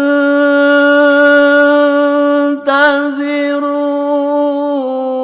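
A single voice chanting Quranic recitation and holding one long, steady note. The note breaks briefly about halfway through, then goes on and dips slightly in pitch near the end.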